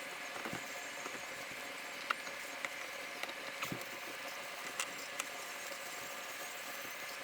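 A steady background hiss, with a handful of light clicks and taps scattered through it.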